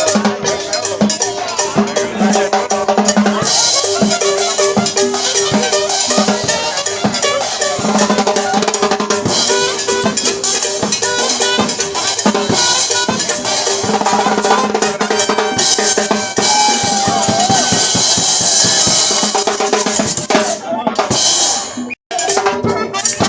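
Live dance band playing with a steady drum-kit beat of snare, bass drum and rimshots under the music. The sound drops out for an instant near the end.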